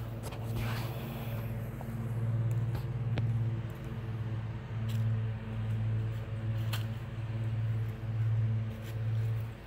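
A machine's steady low hum that swells and fades about once a second, with a few faint clicks over it.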